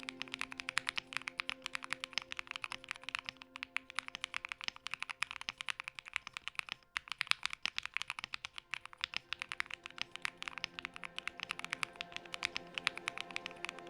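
Fast typing on a Thera75 mechanical keyboard with JWK Silk switches: a rapid, continuous stream of keystrokes with a short pause about seven seconds in. Background music plays underneath.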